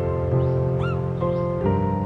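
Background music of slow, sustained keyboard chords. Short rising chirps sound over it about twice a second, the clearest an arched call near the middle.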